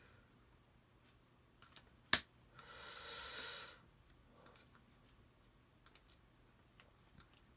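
Computer mouse clicking several times, with one sharp, loud click about two seconds in. Right after it comes a hiss lasting about a second.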